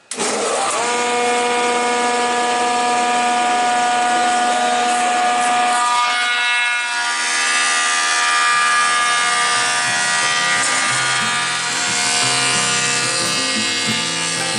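A thickness planer's motor coming up to speed with a rising whine and then running steadily while planing cherry, mixed with background music whose notes change in steps from about halfway through.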